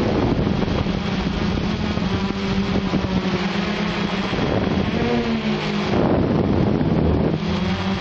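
Quadcopter's electric motors and propellers humming steadily in flight, with a brief shift in pitch about five seconds in, over wind noise on the microphone.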